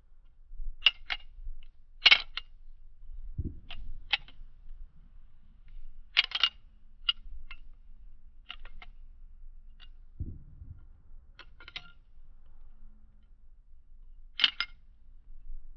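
Butterfly knife (balisong) being twirled: irregular sharp clacks of the handles snapping against each other and against the blade, in quick pairs and clusters. Twice there is a dull low thump of handling.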